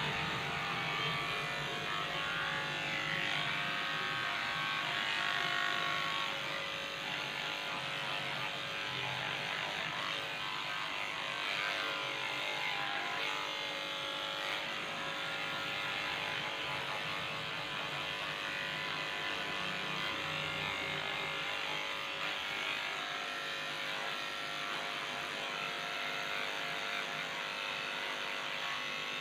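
Electric pet hair clipper running steadily while cutting a dog's fur.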